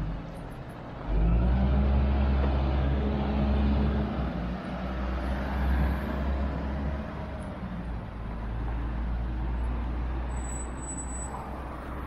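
An engine running with a deep, steady hum that comes in suddenly about a second in and eases a little after about seven seconds.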